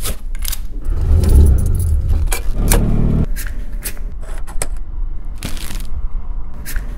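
A quick run of sharp clicks, scrapes and jingles, with a low hum that swells twice.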